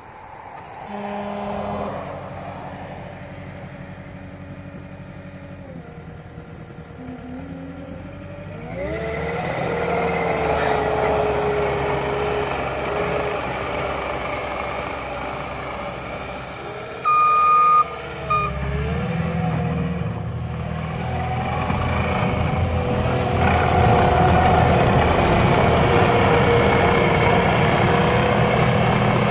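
Cat 259D compact track loader's diesel engine running, revving up about nine seconds in as the machine moves off, and rising again later to run hard. Around the middle, a backup alarm beeps twice briefly.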